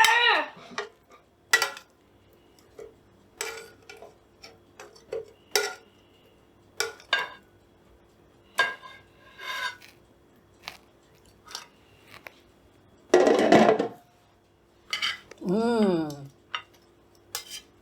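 Plates and cutlery clinking and knocking in short, irregular taps as food is served out, with a louder burst of noise about two-thirds of the way through. A faint steady hum runs underneath.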